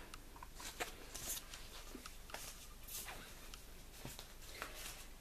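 Faint rustling and light taps of a 12-inch vinyl record sleeve being handled and set down, scattered soft clicks with no steady sound.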